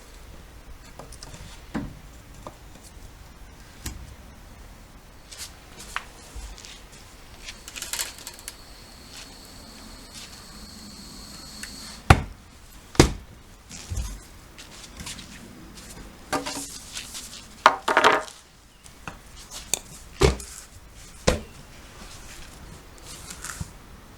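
Hand tools clanking and knocking against a car wheel and tyre during manual tyre work, in scattered single strikes with the loudest cluster in the second half. A faint high steady whistle lasts a few seconds around the middle.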